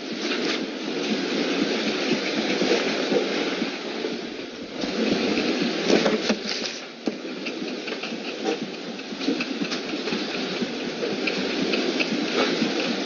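A drawing tool scratching and rubbing on paper close to the microphone, in uneven strokes with small clicks. It swells louder from about five seconds in and eases off again near the seventh second.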